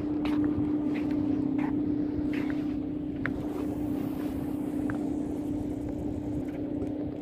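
Steady engine drone holding one low pitch, over a rough low rumble, with a few faint light ticks.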